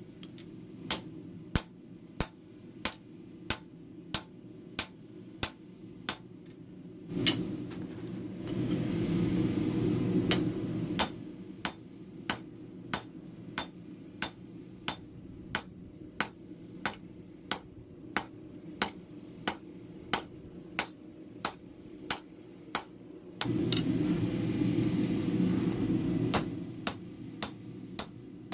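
Hand hammer blows on steel at an anvil, about three every two seconds, each with a bright metallic ring, during the forging of a cleaver from a steel gear. Twice the hammering stops for a few seconds of louder steady rushing noise, over a low steady hum.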